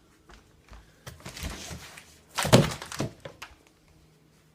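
Parts and packaging being handled during an unboxing: a rustle, then one loud thunk about two and a half seconds in, followed by a couple of light knocks.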